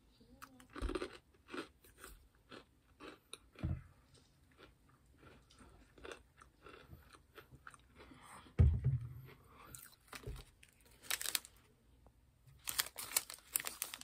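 Close-up chewing of chocolate-covered almonds: irregular crisp crunches as they are bitten and chewed. A dull thump comes a little past halfway, and a plastic snack wrapper crinkles near the end.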